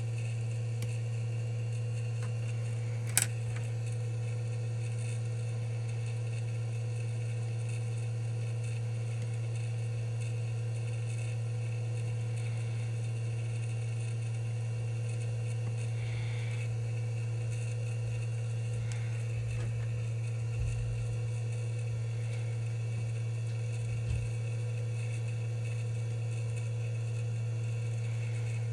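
Steady low electrical hum of bench equipment, with one sharp click about three seconds in.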